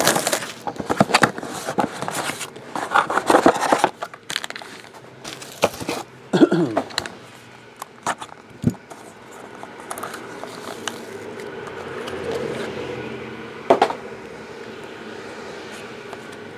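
Plastic shrink-wrap crinkling and tearing as it is stripped off a sealed trading-card box, then scattered scrapes and clicks as the box is opened and the cards are handled.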